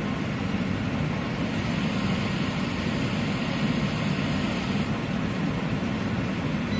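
Dehumidifier running with a steady, even whirring hum.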